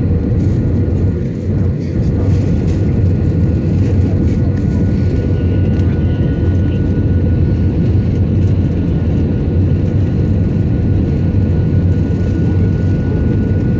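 Steady cabin noise of an Airbus A320-family jet on final approach with flaps extended: the low rumble of engines and airflow heard inside the cabin over the wing. A faint steady high tone runs through it from a few seconds in.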